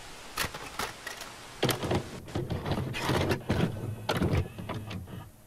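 VCR mechanism loading a VHS tape: a series of clicks and clunks over a low motor whirr.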